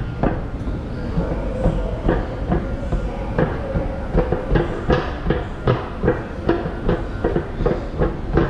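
Changsha Metro train running on the rails: a steady hum and rumble with a rhythmic clatter of wheels over the track that quickens from about one beat a second to about three.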